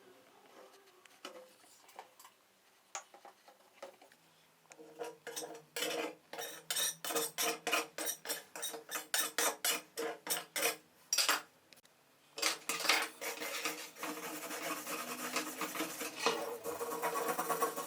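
Hand work on metal: a few light clicks, then repeated short scraping strokes, about two or three a second, and from about twelve seconds in steady continuous rubbing.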